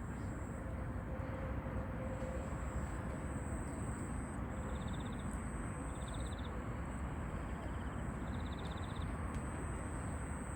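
Strong wind buffeting the microphone, a steady heavy rumble without a break, with faint short high chirps now and then.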